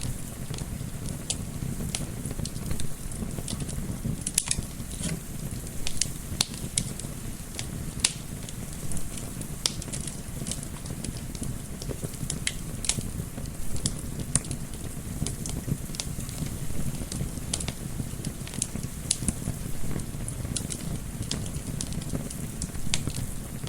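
Wood fire crackling, with frequent sharp irregular pops and snaps over a steady low rumble of flames and a soft windy hiss.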